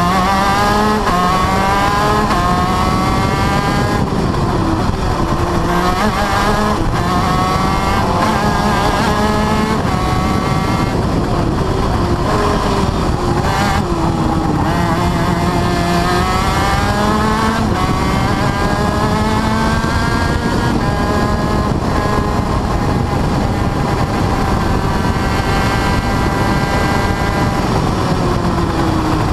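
TM KZ10B 125cc two-stroke shifter kart engine heard on board at racing speed. Its revs climb again and again and fall back sharply as it shifts up through the gears, and run down in a few stretches under braking and downshifts.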